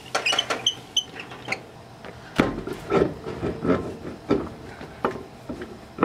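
Irregular metallic clicks and knocks from a lug wrench working lug nuts off a travel trailer wheel, with a few faint high pings near the start, then the knock of the wheel being handled on the hub.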